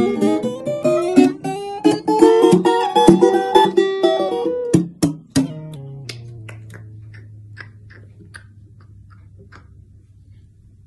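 Acoustic guitar strummed in chords. The strumming stops about five and a half seconds in, and the last low note rings on and fades away.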